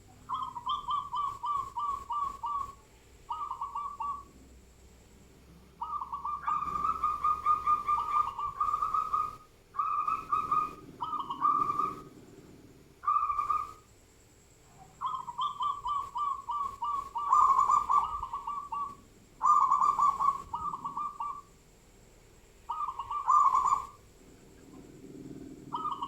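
Kacor bird singing: repeated phrases of quick, rapidly repeated notes, each phrase lasting one to three seconds, with short pauses between.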